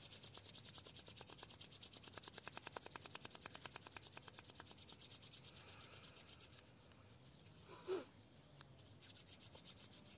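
Palms rubbing briskly together: a faint, fast, even swishing of about seven strokes a second that slows and fades after about six seconds. A brief, slightly louder sound comes about eight seconds in.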